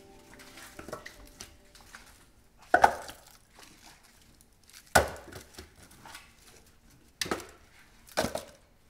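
Split firewood logs set down one by one onto a stack: four sharp wooden knocks, the last two close together, with lighter clatter and rustling before the first.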